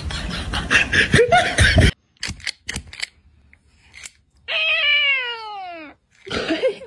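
A cat gives one long meow that falls steadily in pitch, lasting about a second and a half, a little past the middle. Before it, a loud scratchy rasping noise with rapid strokes ends abruptly, followed by a few soft clicks.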